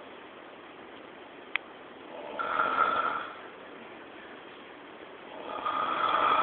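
Snoring: two long snores about three and a half seconds apart, each swelling and fading with a thin whistle-like tone. A single sharp click comes between them.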